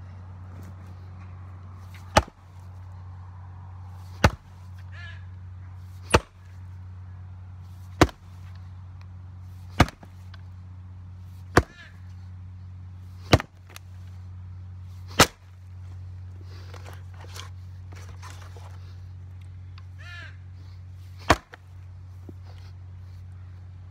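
Axe blows splitting firewood on a chopping stump: nine sharp strikes about two seconds apart, with a longer pause before the last.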